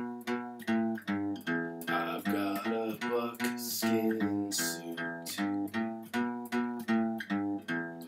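Background guitar music: plucked notes and chords in a quick, even rhythm, about three a second.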